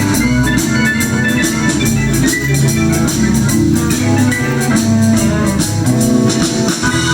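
Blues band music: guitar and organ over a steady drum-kit beat.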